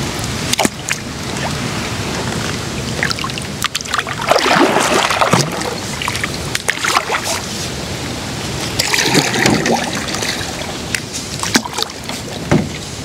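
Paddles splashing in the water as a small rowing boat is paddled across a river, with two longer splashes about four and nine seconds in and a few sharp knocks. Steady wind rumbles on the microphone.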